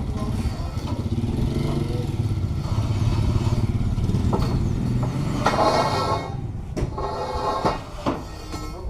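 A small engine idling steadily, with a few sharp knocks and a louder clattering burst about five and a half seconds in.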